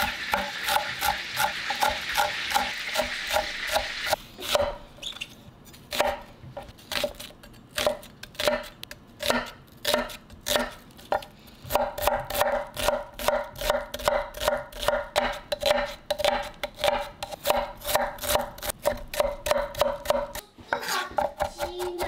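Food sizzling in a frying pan with light regular utensil taps; the sizzle stops about four seconds in. A kitchen knife then chops on a cutting board, at first unevenly and later in a steady rhythm of about three to four strokes a second.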